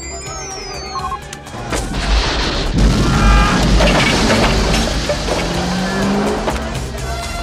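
Film action sound: about two seconds in a missile whooshes off, and a second later a big explosion lands with a deep boom. The roar of the blast and the fire go on under orchestral score, along with the car's engine and tyres.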